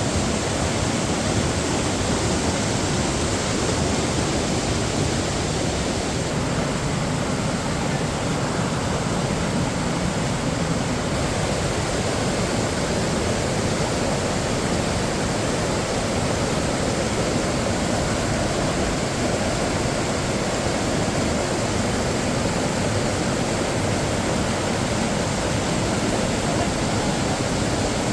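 Waterfall rushing steadily: a dense, unbroken roar of falling water.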